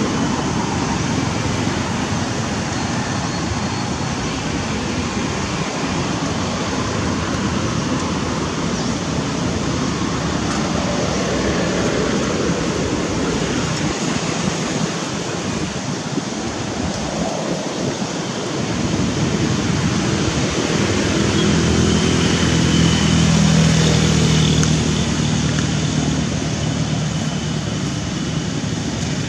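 Steady rushing outdoor background noise, like distant traffic, with a low droning hum that swells for a few seconds about two-thirds of the way through.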